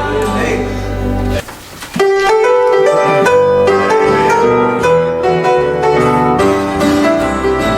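Instrumental music, mostly piano: a held chord that breaks off about a second and a half in, then, after a short gap, piano notes playing a melody.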